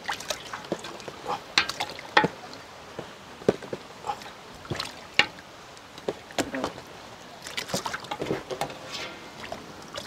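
Raw mutton legs going into a large aluminium pot of water, making irregular splashes and sloshing.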